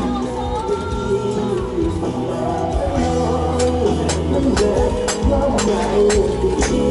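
Music played through a large PA sound system under test: a held, gliding melody over heavy bass, with drum hits coming in about three and a half seconds in.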